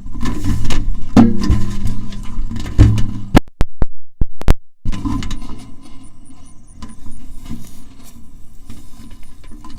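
Kite line vibrating a resonator mounted on the kite reel: a low steady drone with knocks and wind rumble. It almost cuts out for about a second and a half near the middle, with a few sharp clicks, then returns quieter.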